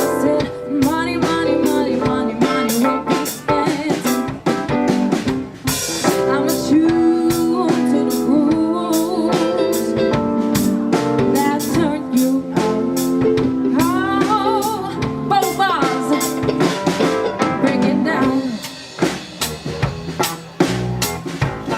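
Live band playing a pop-rock song: drum kit keeping a steady beat with rimshots, with guitar, bass and a singing voice. Near the end the rest of the band drops back and the drums carry on.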